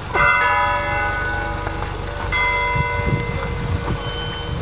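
Church bell tolling slowly: struck twice a couple of seconds apart, each stroke ringing on, a funeral knell for the arriving remains.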